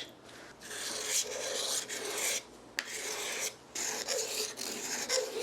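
A Mora hook knife's steel blade being stropped on leather loaded with honing compound, polishing the edge: a few long rubbing strokes with short pauses between them.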